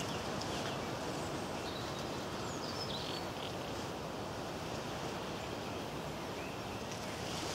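Steady wind noise, with a few faint bird chirps about three seconds in.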